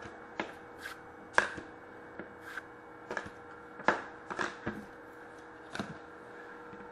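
Trading cards being handled and set down on a glass tabletop: a string of short, irregular light taps and clicks, about a dozen in all, over a faint steady hum.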